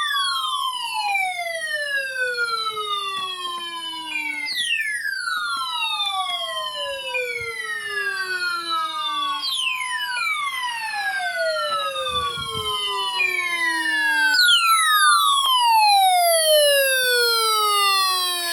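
Electronic siren-like alarm tone: a cluster of pitches that glides steadily downward and jumps back up to start over about every five seconds.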